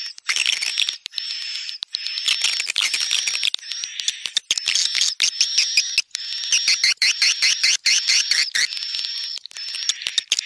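A swiftlet lure call (suara walet 'tarik senja'), a recorded track of swiftlet calls made to draw swiftlets to a swiftlet house at dusk. It runs as a continuous string of high-pitched chirping twitters, each with a short held whistle on top, repeating about twice a second with rapid clicks in between.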